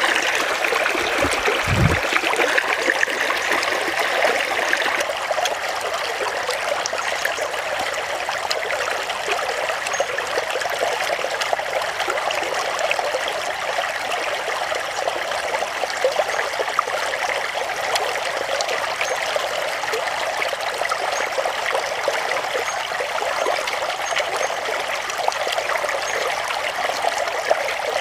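Stream water flowing and trickling steadily, with two short low thumps a little under two seconds in.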